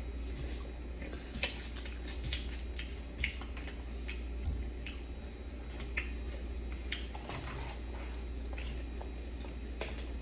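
Close-up chewing of food, with scattered short wet clicks over a low steady hum.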